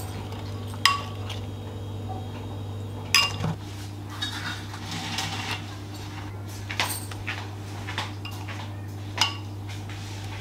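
A spoon clinks against a glass bowl while stirring and scooping thick chili paste, with two sharp ringing clinks. Then come softer scrapes and light taps as the paste is spooned onto raw goat ribs on a baking tray, over a steady low hum.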